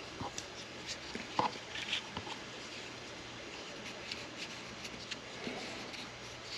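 Scattered light clicks and taps of a small metal bracket and a measuring tool being handled, with a faint steady hum underneath.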